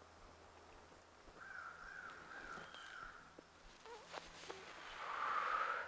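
Breathy puffs of a person blowing out tobacco smoke, with a long blow near the end that is the loudest sound.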